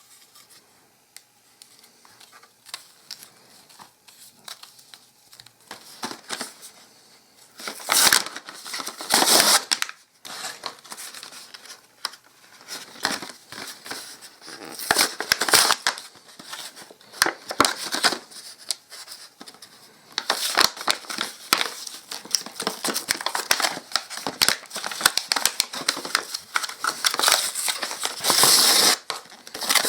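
Pez dispensers' card-and-plastic blister packaging crinkling and crackling as it is handled and torn open. After a quiet first few seconds the crinkling comes in irregular loud bursts, and it runs almost without a break in the second half.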